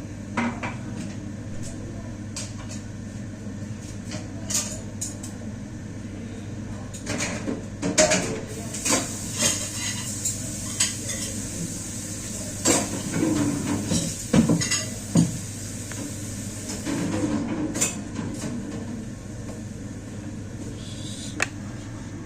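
Dishes and cutlery clattering as plates are handled and set down, in irregular knocks that come thickest in the middle, over a steady low hum.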